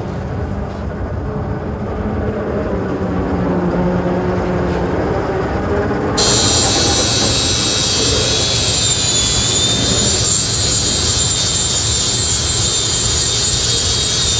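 A low machine hum, then about six seconds in a loud, steady high-pitched hiss and whine of an angle grinder's abrasive disc cutting steel tubing.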